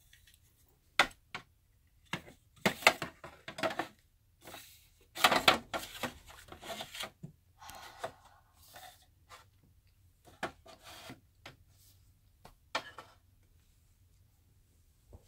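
Small plastic dollhouse furniture being handled and set down on the plastic floors of a dollhouse: scattered clicks and knocks with short bursts of rustling and scraping.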